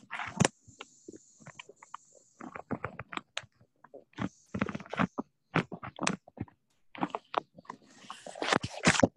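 Irregular clicks, knocks and rustling handling noise picked up by an open microphone on a video call, with a denser, louder run of rustling near the end.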